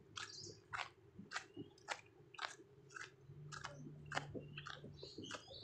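Footsteps crunching on loose river stones and gravel at an even walking pace, about two steps a second.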